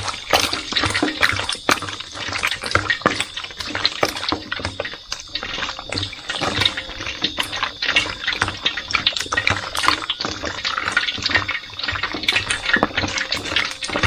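Raw catfish pieces rubbed and stirred by hand in a wet container of salted water: a steady run of wet squelching and small splashing clicks.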